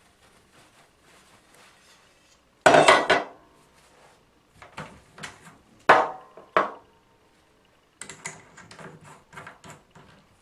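Hard objects clattering and knocking as they are handled and set down. There is a loud clatter about three seconds in, two sharp knocks around six seconds, then lighter taps near the end.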